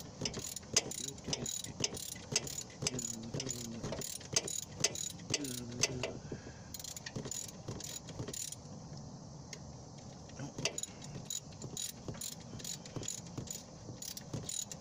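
Hand ratchet wrench clicking in runs of quick strokes as a long bolt is backed out, with fewer clicks for a couple of seconds in the middle.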